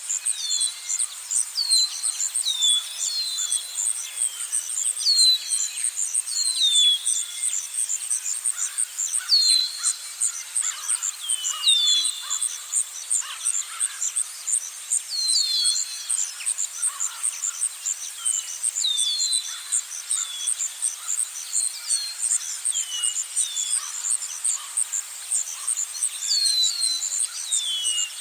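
Forest ambience: birds giving short chirps that fall in pitch, repeated every second or so, over a steady, very high, fast-pulsing insect trill.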